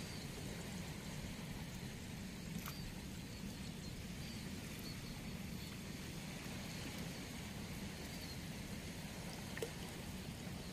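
Steady, low outdoor background noise with faint short chirps now and then, and two small clicks, one about a quarter of the way in and one near the end.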